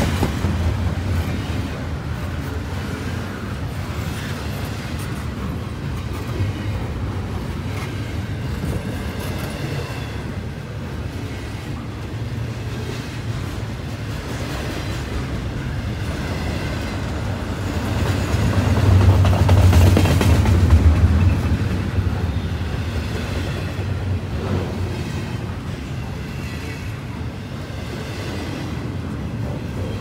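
Double-stack container freight train passing close by: a steady rumble and clatter of steel wheels on rail. It swells louder for a few seconds about two-thirds of the way through, then settles back.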